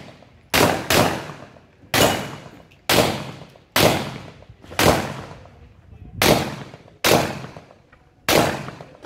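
A handgun fired about nine times during a practical-shooting course of fire, the shots coming singly at uneven intervals of roughly one second. Each shot leaves a short echo tail.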